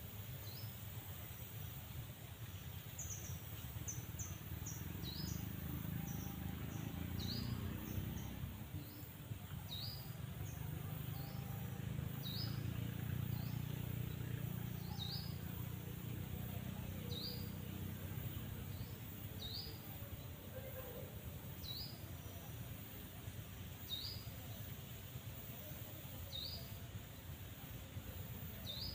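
A small bird chirping: short rising notes repeated about once a second, with a quicker run of higher chirps a few seconds in, over a low steady rumble.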